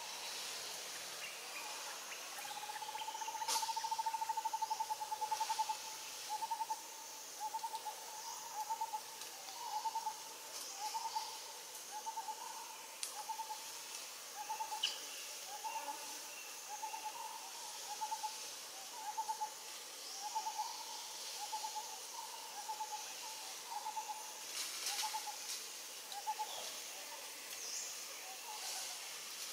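A bird calling: one long trilled note a couple of seconds in, then short notes at the same pitch repeated steadily about one and a half times a second, stopping near the end. A faint steady hiss runs underneath.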